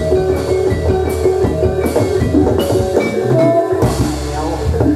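Live Javanese jathilan dance accompaniment: a gamelan-style ensemble playing loudly, with drums keeping a busy beat under sustained ringing notes.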